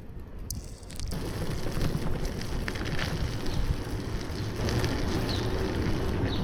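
Wind rushing over a bike-mounted action camera's microphone, with rumbling road noise from a bicycle riding on snowy streets; it grows louder about a second in.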